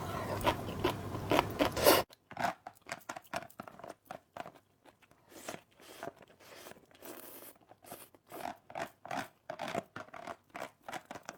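Close-miked mouth sounds of someone chewing noodles: a run of short clicks and smacks, denser and louder for the first two seconds, then sparser.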